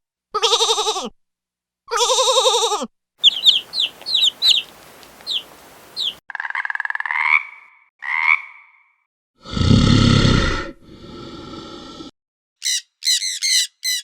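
A run of different animal calls cut one after another with short silent gaps. First come two pitched calls that drop in pitch at the end, then chirping birds over a hiss and two rising calls. About ten seconds in there is a loud, deeper call, and near the end a quick series of high squawks.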